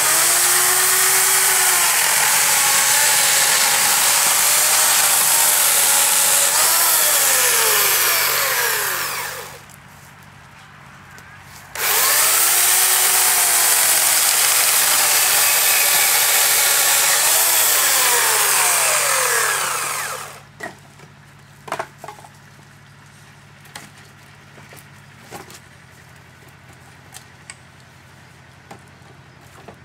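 Corded electric chainsaw cutting through logs in two runs of about nine seconds each, a couple of seconds apart. The motor's whine sags in pitch as the chain bites into the wood, then cuts off. A few light knocks follow after the second cut.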